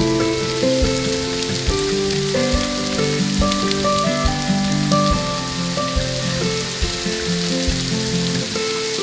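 Steady hiss of heavy rain, with background music over it: held melodic notes and a low beat a little more than once a second.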